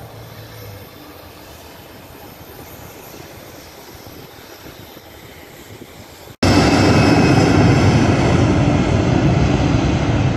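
Faint airport background noise, then about six seconds in a sudden jump to the loud, steady rush and whine of a jet airliner's engines at high thrust as it rolls down the runway for takeoff.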